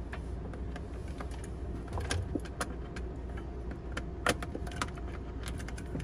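Scattered light clicks and rattles of a Norcold RV fridge's thermistor wire and its plastic clip being handled and worked loose at the metal cooling fins, with one sharper click about four seconds in, over a steady low hum.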